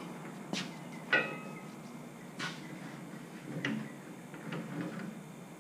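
Steel loader bucket and grapple attachment knocking and clanking as it is shifted by hand on its roll-around dolly. The clanks come as a handful of separate hits; the loudest, about a second in, rings briefly like struck steel.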